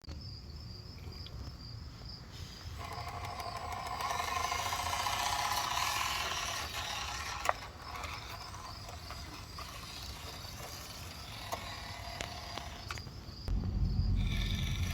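RC 6x6 truck's electric motor and gearbox whining as it drives, with sharp clicks and clatter; near the end a sudden loud low rumble sets in.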